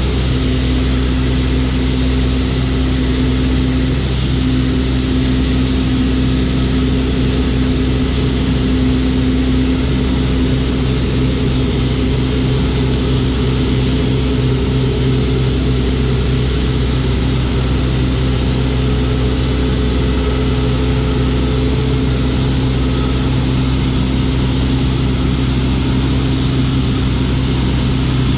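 Farm machine engine running steadily under load, a constant drone heard from inside the cab.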